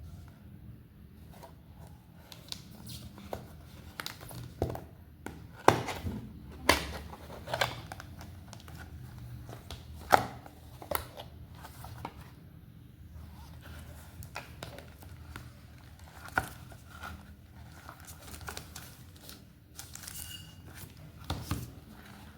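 Packaging handled during a phone unboxing: plastic wrap and paperboard crinkling and tearing, with scattered sharp clicks and knocks, the loudest about six and ten seconds in.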